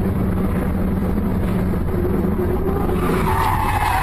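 Steady engine and road noise heard from inside a moving car. About three seconds in, tyres begin a high squeal that falls slightly in pitch, as a vehicle skids under hard braking.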